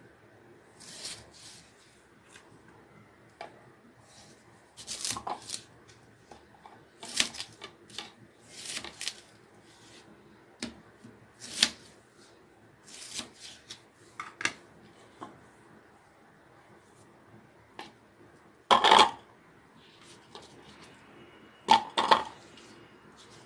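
Kitchen knife cutting red onions into large pieces on a plastic cutting board: irregular cuts and taps on the board. A few louder knocks near the end as the onion pieces go into the chopper's plastic bowl.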